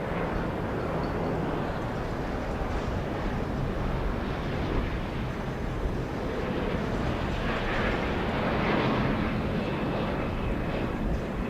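Aircraft engine noise: a steady, dense rush that swells a little around two-thirds of the way in.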